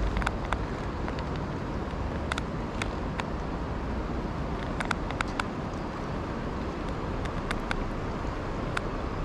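Steady rushing of water at a river weir, with a scattering of sharp clicks at irregular intervals.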